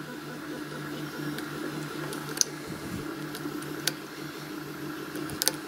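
Lock pick working the pins of a pin-tumbler padlock with spool and serrated pins under heavy tension: a few faint, sharp clicks spaced about a second or more apart, over a steady low hum.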